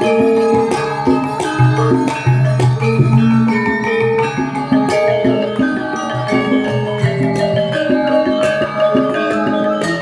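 Javanese gamelan ensemble playing: bronze metallophones and gongs ring in interlocking patterns over hand-drum strokes.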